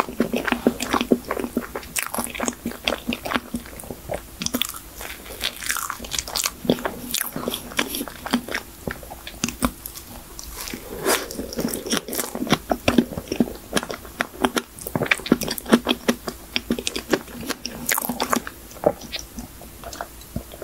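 A person biting and chewing a soft cream folding cake, with many quick, irregular wet mouth smacks and clicks, then a sip of iced coffee near the end.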